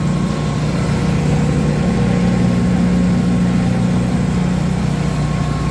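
RMF MB2000 stainless paddle blender running, its two 15 HP electric motors and paddle drive giving a steady low hum with a faint high whine above it.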